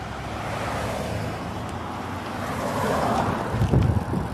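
Road traffic: a car going past, with wind rumbling on the microphone, and a few low knocks near the end.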